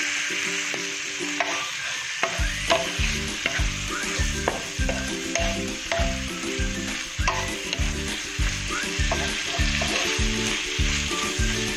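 Cabbage, carrots and shrimp sizzling in a hot wok, turned with a wooden spatula that scrapes and knocks against the pan. A regular low beat about twice a second sets in about two seconds in.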